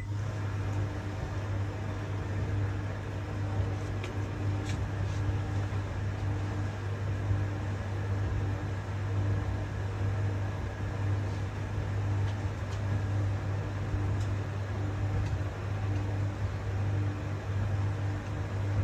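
Logik LVD7W18 7 kg vented tumble dryer running, just started on a drying load: a steady low hum from its motor and fan turning the drum, with a fainter steady tone above it and a few faint ticks.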